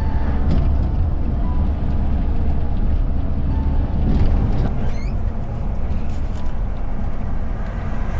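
Steady engine and tyre rumble of a vehicle cruising on an expressway, heard from inside the cab.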